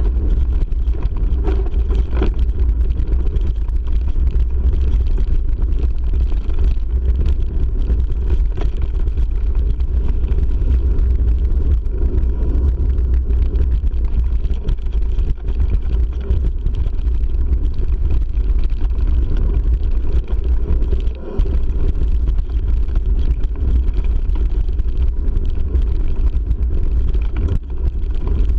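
Mountain bike rolling over a loose gravel track, picked up by an action camera: a steady low rumble of tyres on gravel and wind on the microphone, with small knocks and rattles from the bumps.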